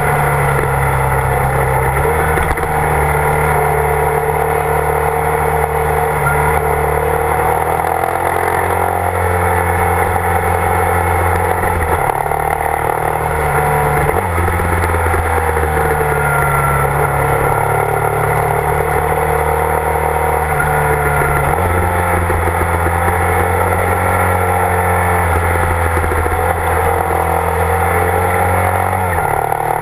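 Motorcycle engine running steadily under way. Its note drops and rises in steps several times as the rider works the throttle and gears along a winding road.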